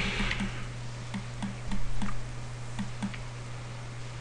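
Faint clicking at a computer mouse and keyboard over a steady low hum, with a soft low pulse repeating about three times a second.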